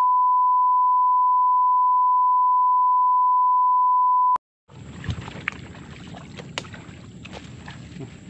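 A steady electronic beep tone held at one pitch for about four seconds, cut off suddenly. After a brief silence comes outdoor sound of someone moving through brush, with rustling and scattered small clicks and snaps.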